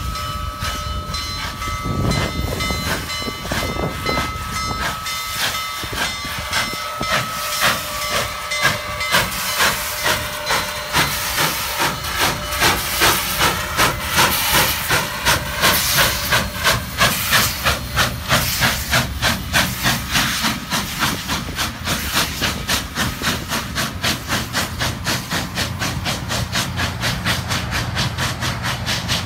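Union Pacific No. 844, a 4-8-4 steam locomotive, pulling out past with its cylinder cocks open, giving a loud steam hiss, with steady whistle tones for the first several seconds. Its exhaust then chuffs in a steady beat of about one and a half a second, which turns faster and lighter near the end as the passenger cars roll by.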